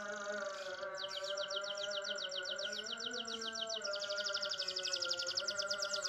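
Green domestic canary singing a fast rolling trill of repeated high notes, starting about a second in and speeding up about four seconds in, over steady background music.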